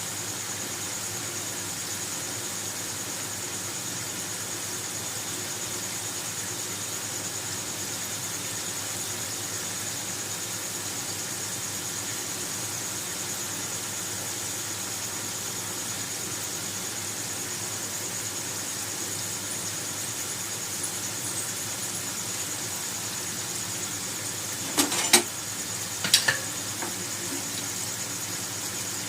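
Potato fries frying in hot oil, a steady sizzling hiss, with two sharp knocks of a utensil against the pan near the end.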